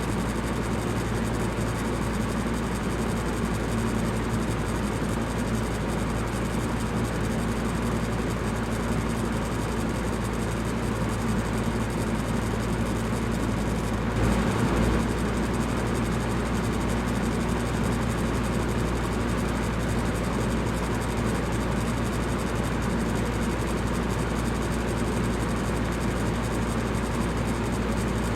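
Electric fan running steadily: an even rush of air with a low motor hum beneath it. About halfway through, the sound swells slightly for about a second.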